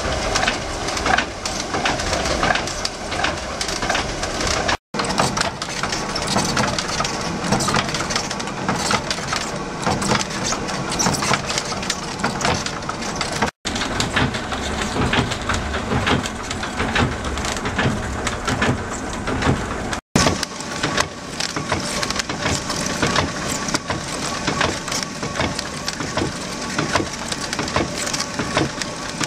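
Traditional windmill's millstones and mill machinery grinding wheat, a steady dense clatter and rumble. It cuts out briefly three times.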